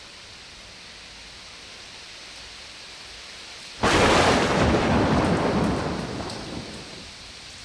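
Steady heavy rain, then about four seconds in a sudden loud clap of thunder that rumbles and dies away over about three seconds.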